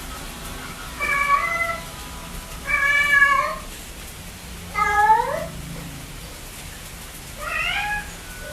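Kittens mewing: four short, high-pitched mews about two seconds apart, the later ones rising in pitch.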